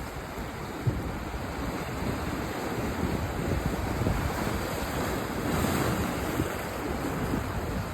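Sea waves breaking and washing in, as a steady rush with a wave swelling loudest about five and a half seconds in. Wind buffets the microphone underneath.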